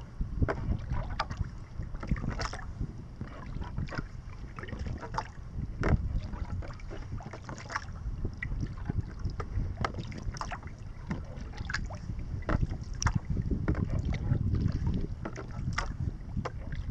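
Water lapping and splashing against a wooden kayak's hull as it is paddled along, with irregular small slaps. Wind rumbles steadily on the microphone underneath.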